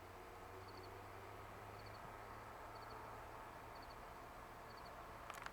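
Faint cricket chirping: short three-pulse chirps repeating about once a second over a low steady hum, with a click near the end.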